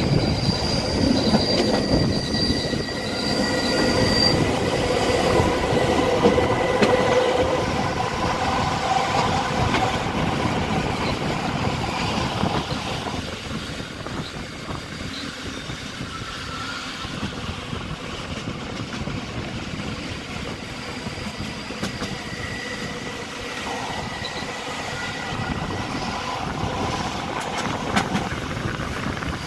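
Rhaetian Railway narrow-gauge train running, heard from aboard: a steady rumble of wheels on the track with thin, high wheel squeal on curves. The squeal is strongest in the first several seconds and returns near the end.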